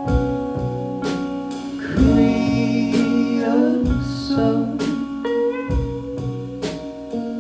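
A live rock band playing: sustained guitar tones over drum hits about once a second.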